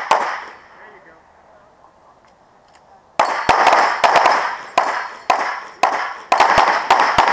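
9mm pistol-caliber carbine firing fast strings of shots, often in pairs, each a sharp crack with an echoing tail, starting about three seconds in. A single sharp report comes at the very start.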